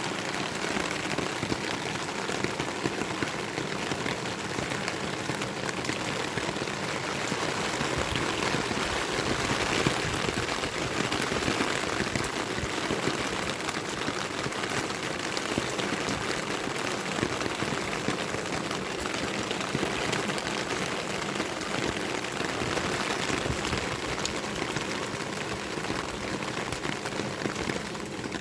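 Heavy monsoon rain pouring down, a steady, dense patter of drops hitting surfaces.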